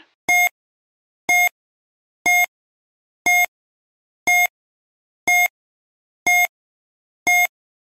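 Quiz countdown timer: eight short, identical electronic beeps, one each second, each a clear tone with overtones, marking off the seconds left to answer.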